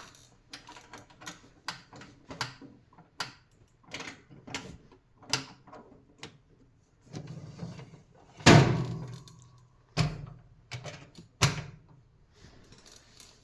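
Metal hand tools clinking and clattering while drawers of a tool chest are handled. About eight and a half seconds in comes a loud metal thud with a brief ringing note, then two more sharp knocks.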